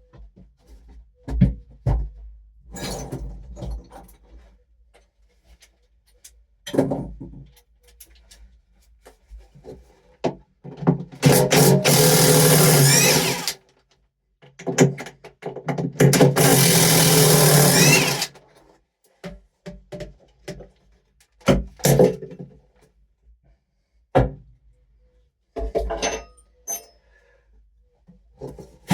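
Power drill run in two long pulls of about two to three seconds each, around the middle, with scattered knocks and thuds of handling between.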